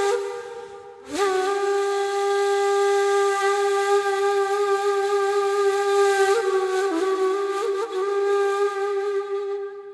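Solo ney (Turkish reed flute) improvising a taksim in makam Bestenigâr, breathy in tone. A phrase ends about a second in, and after a short breath a long held note follows, lightly ornamented, tapering off near the end.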